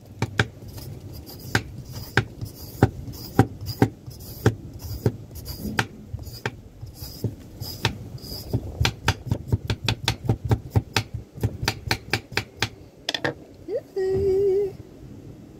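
Hand peeler stripping the skin off a green papaya: short crisp strokes one after another, quickening to about three or four a second in the middle and thinning out later. A brief hum near the end.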